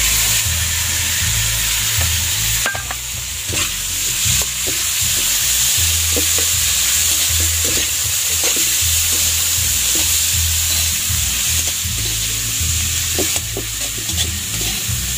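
Carrots and bell pepper sizzling in hot oil as they are stir-fried in a pan: a steady hiss, with short taps and scrapes of the spatula against the pan now and then, over a low rumble.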